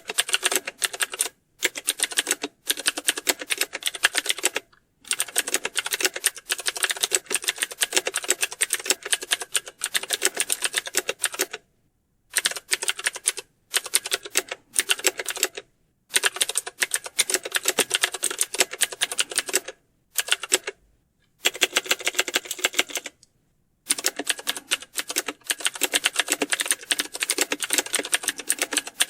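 Fast typing on a computer keyboard: dense runs of key clicks lasting a few seconds each, broken by short pauses about ten times.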